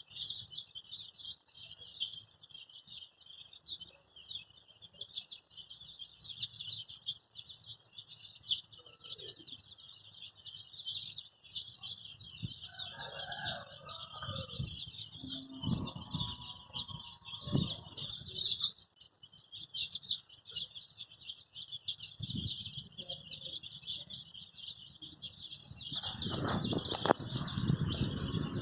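A flock of baby chicks peeping nonstop, a dense chorus of short high chirps. A few lower calls come through midway, and a broad rustling noise rises near the end.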